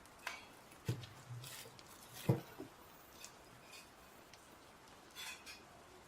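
Handling noises: a few scattered clicks, knocks and rustles, the loudest a low knock a little over two seconds in.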